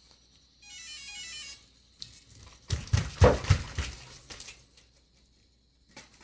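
Electronic speed controller giving its short run of power-up beeps as a battery is connected through the new Castle connectors, followed about two seconds later by a burst of loud knocking and rattling, the loudest part.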